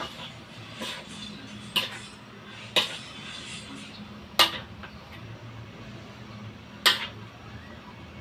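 Metal spoon clanking against a metal wok while stir-frying noodles: about six sharp clanks at irregular intervals, over a faint steady low hum.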